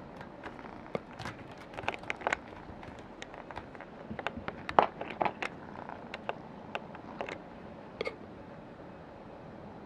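A kitten's claws scratching and catching on a sisal scratching post: a string of irregular sharp scratches and clicks that stops about eight seconds in.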